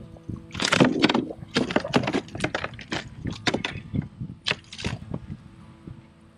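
A small northern pike thrashing on the plastic deck of a kayak: a quick, irregular run of slaps and knocks that dies away about five seconds in.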